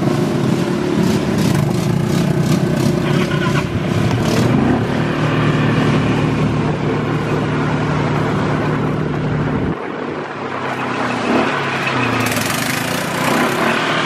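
ATV engine running steadily at speed on a dirt trail, with a rough rushing noise over it. About ten seconds in, the engine note changes abruptly to a lighter, unsteady run.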